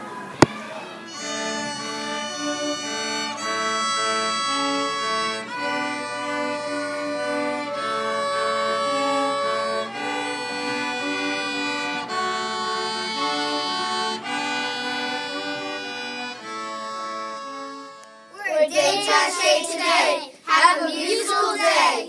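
Violins playing a slow piece in held notes, stopping about eighteen seconds in. Children's voices follow near the end.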